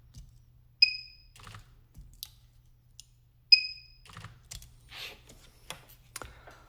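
Handheld pen-type spot welder firing twice, about a second in and again near the middle. Each weld is a sharp snap with a short high beep, as it welds nickel strip onto the lithium-ion cells of an e-bike battery pack. Between and after the welds come fainter clicks and handling of the pack.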